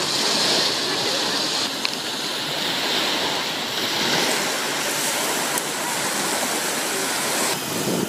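Small Black Sea waves breaking and washing in at the shoreline: a steady surf.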